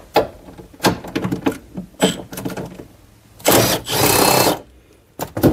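Cordless power tool turning a 10 mm socket on an extension to back out a subwoofer mounting bolt: several short trigger bursts, then a steady run of about a second past the halfway point as the bolt spins out.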